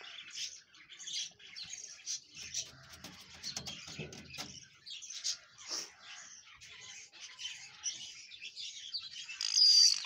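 Rose-ringed parakeets chirping: many short, high chirps, scattered and overlapping, with a louder call just before the end.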